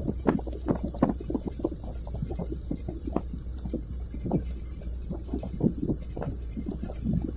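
Strong wind buffeting the microphone in irregular low thuds, several a second, over the steady low hum of the vessel's engine.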